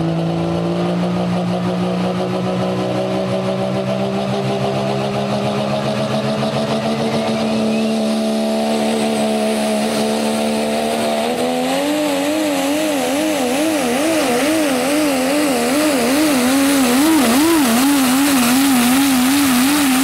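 Dodge Ram pulling truck's engine revving hard under load while dragging the pulling sled. Its pitch climbs steadily, then steps higher about eleven seconds in and wavers up and down about twice a second.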